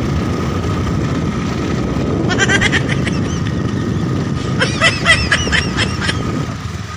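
Scooter running along a road, its engine under a steady rush of wind on the microphone. Twice, a quick series of short high chirps cuts through, about two seconds in and again about five seconds in.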